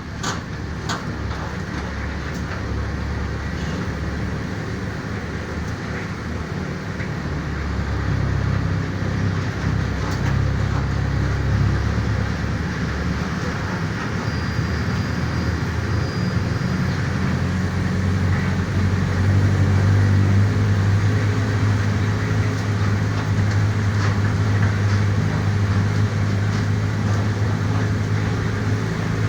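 Diesel engine of a Mercedes-Benz OF-1418 city bus heard from inside the cabin, pulling under load with body rattles. It gets louder about eight seconds in and again near the middle, settling into a steady low drone.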